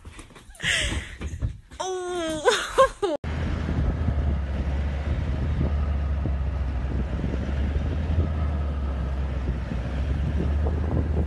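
A short wavering pitched call among scattered indoor sounds, then a sudden switch to a vehicle driving: a steady low engine hum with wind rushing over the microphone.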